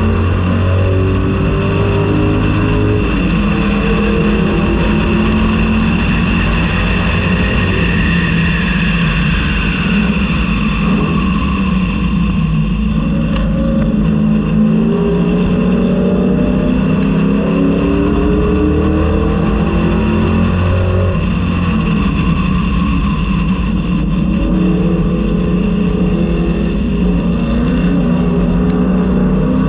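A 1999–2004 Ford Mustang race car's engine heard from the cockpit under racing load: the engine note climbs in steps as it accelerates through the gears, drops back as it slows for a corner about ten seconds in and again near twenty-two seconds, then climbs again.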